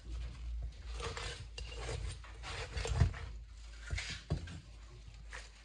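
Kitchen handling sounds: irregular scraping and rubbing with scattered light knocks of utensils and dishes, and a couple of dull thumps about three and four seconds in.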